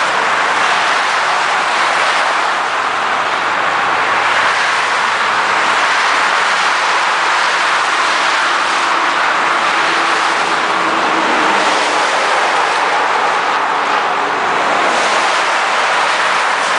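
Steady rushing noise of highway traffic: a convoy of tow trucks, semi-trucks and cars passing on the road.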